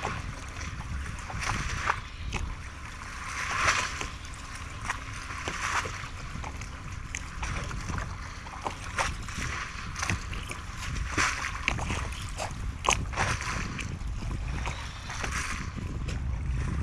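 Sea water lapping and splashing against a moored fishing raft, with scattered small clicks and knocks and a low wind rumble underneath.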